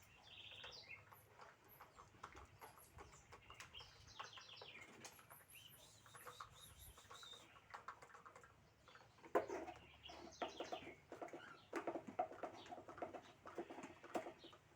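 Birds chirping, many short high notes coming and going, with a sharp click about nine seconds in followed by a few seconds of lower, pitched calls.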